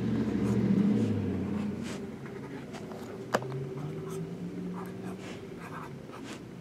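Felt-tip marker squeaking and scratching over plastic shrink-wrap in short strokes as numbers are written on boxes, with a single sharp tap about three seconds in. A low steady hum runs underneath, loudest in the first second or so.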